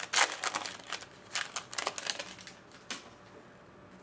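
Baseball trading cards being handled and flipped through by hand: a run of quick clicks and slides of card against card, which stop about three seconds in.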